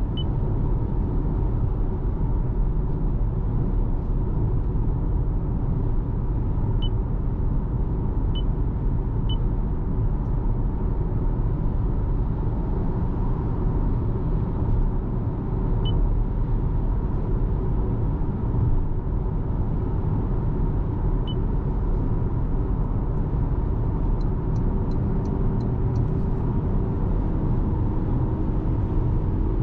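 2026 Toyota RAV4 hybrid on the move: a steady, even rumble of road and running noise, with a faint constant hum over it. A few faint, quick clicks come near the end.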